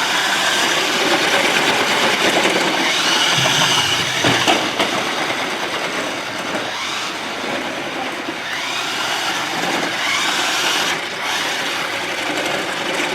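Toy remote-control car's electric motor whirring as it drives, its whine rising and falling, with a single knock about four seconds in.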